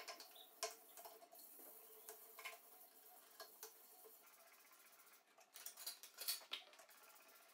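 Scattered light clicks and taps of small objects being handled and set down, busiest about five to six and a half seconds in, over a faint steady hum.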